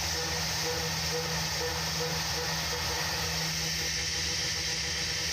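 Tormach 440 CNC mill milling brass with a small end mill: a steady hiss and hum from the spindle and cut, with a short tone repeating about twice a second as the tool runs its adaptive toolpath.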